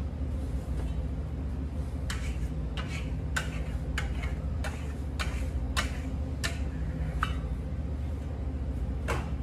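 Steel trowel scraping in short strokes over wet green Venetian plaster on a sample board, about ten strokes in quick succession, then one more near the end, over a steady low hum.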